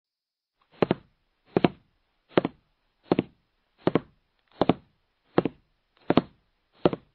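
A regular series of sharp double knocks, nine in all, one about every three-quarters of a second, beginning about a second in.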